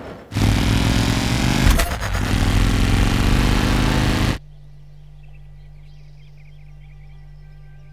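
A loud, steady rumbling roar with a couple of sharp knocks about two seconds in. It cuts off abruptly just past four seconds, leaving a low steady hum and faint high chirps like birds.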